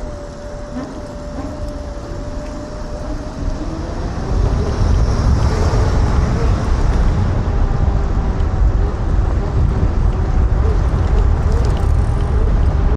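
Wind rushing over the helmet or body camera's microphone while riding a Kaabo Wolf King GTR electric scooter, growing louder about four seconds in as the scooter picks up speed. A thin steady whine sits under the wind noise.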